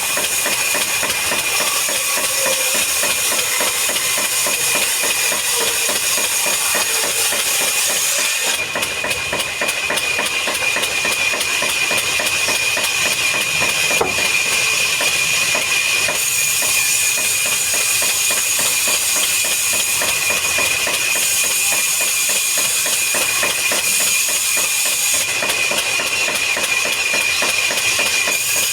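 Woodworking factory machinery running steadily: a constant high whine over a dense, rapid clatter. The sound shifts slightly about 9, 16 and 25 seconds in.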